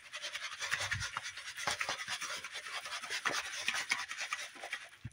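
Boneless chicken cutlets coated in a dry seasoning rub being shaken around in a plastic bowl. The meat and seasoning slide and tumble against the plastic in a rapid, continuous scratchy rustle.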